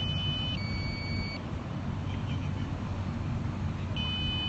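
Drone controller's low-battery warning: a two-part electronic beep, one pair of steady tones stepping to another, sounding at the start and again near the end, over a steady low rumble. It signals that the battery is nearly flat.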